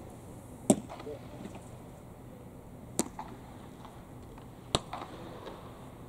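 Three sharp cracks about two seconds apart, the loudest about a second in, ringing through a large dome over a steady hum of hall ambience. They are typical of a baseball being caught in a leather glove or struck by a bat.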